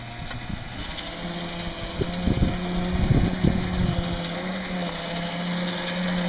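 Bulldozer engine running under load while it pushes dirt, its note rising to a higher steady pitch about a second in as it speeds up, with a few low thumps a couple of seconds later.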